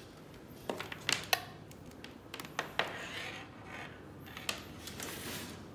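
Cable plugs and connectors clicking and knocking against the metal housing of a fiber laser marker's control box as cables are handled and plugged in: a scattering of short, irregular clicks, the sharpest about a second in.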